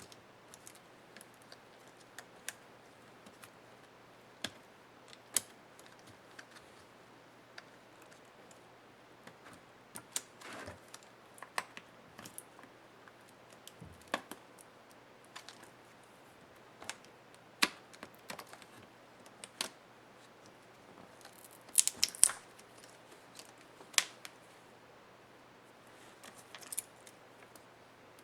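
Scattered sharp clicks and taps of small tools, screws and plastic and metal parts being handled while a laptop is taken apart, with a brief scrape about ten seconds in and a quick run of louder clicks near the end.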